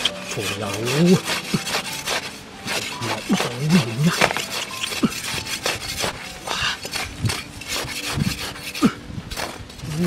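Quick, irregular scraping and rustling of dry sandy soil and small weeds being torn up and swept away by hand.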